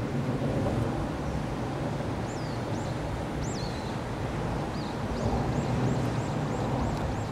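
Steady low outdoor rumble, with a bird's short, high chirps starting about two seconds in and coming more often near the end.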